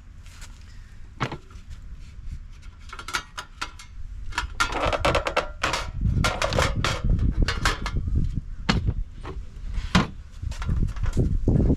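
Camping gear being handled: a run of knocks and clatters, sparse at first, then denser and louder from about four seconds in, over a low rumble.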